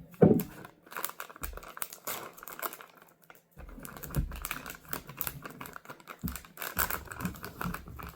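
Hands handling kitchen supplies on a table: irregular rustling and crinkling with a run of light clicks, and a few soft knocks.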